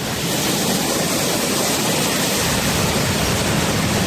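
Strong storm wind rushing steadily, an even, unbroken roar.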